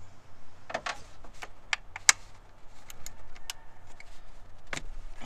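Metal socket and ratchet clicking and clinking irregularly as they are fitted onto a small bolt on a purge valve; the sharpest click comes about two seconds in.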